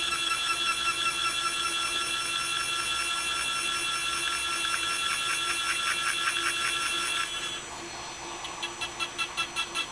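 Mazak Integrex milling spindle running a quarter-inch four-flute carbide end mill, helically cutting counterbores in 4340 steel. It plays sped up, as a steady high whine with a fast regular pulse. About seven seconds in the whine stops and a quieter pulsing sound follows, about three pulses a second.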